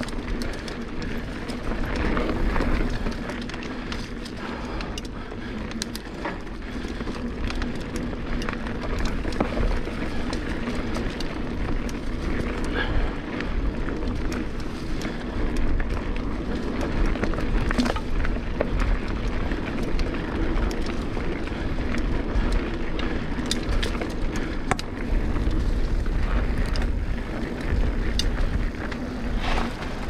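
Mountain bike riding down a dirt singletrack trail: a steady rolling rumble from the tyres and frame, broken by frequent clicks and rattles as the bike goes over bumps.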